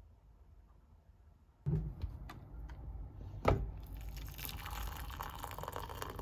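Water poured from a kettle into a ceramic mug over a tea bag, a steady splashing pour that starts about four seconds in. It is preceded by a few light clicks and one louder knock.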